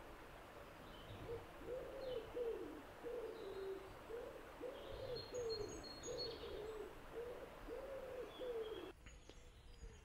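A pigeon cooing: a run of low, rounded coos at about two a second, cutting off near the end. Faint high chirps of small birds sound behind it.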